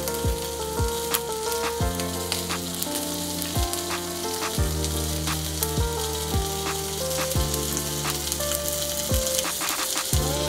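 Soy-protein vegan steaks sizzling in a frying pan, a steady hiss, under background music with a steady beat.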